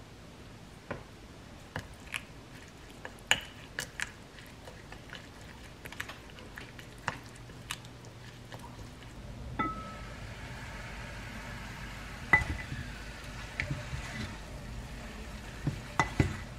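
Light clinks and taps of a wooden spoon against a small glass bowl as a soy-and-chili seasoning sauce is mixed. About ten seconds in, a steady faint hiss and low hum come in, with a few louder knocks of a wooden spatula stirring rice in a ceramic pot.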